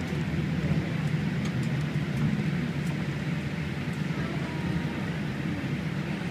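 Steady low rumble inside the cabin of a Boeing 787-8 airliner as it rolls along the ground after touchdown.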